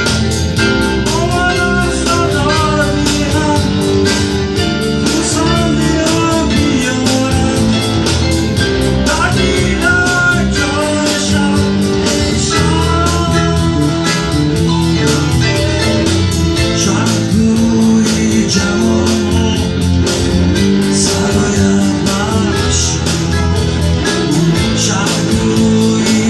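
A live performance of a song: singing over guitar-led backing with a steady beat.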